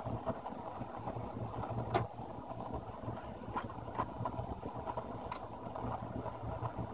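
A steady low mechanical hum with a few small sharp clicks from handling laptop parts, about four of them spread through.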